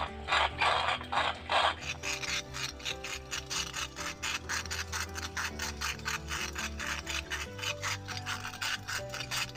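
Hand-cranked corn mill grinding roasted peanuts: a rhythmic rasping, about two to three strokes a second, turning faster and lighter after about two seconds. Background music plays underneath.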